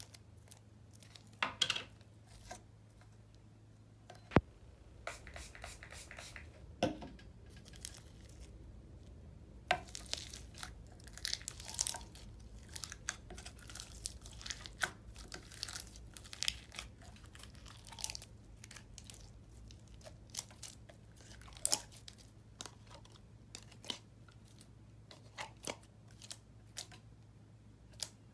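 Marshmallow floam slime, melted and sticky, being pulled and squished out of a plastic deli container by hand: sticky tearing and crackling with scattered small sharp pops and clicks, and a stretch of plastic crinkling a few seconds in.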